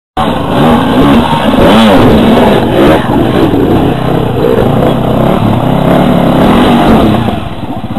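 Enduro dirt-bike engines revving hard and unevenly under load as the bikes climb a steep boulder field, the pitch rising and falling with the throttle. The engine noise drops somewhat about seven seconds in.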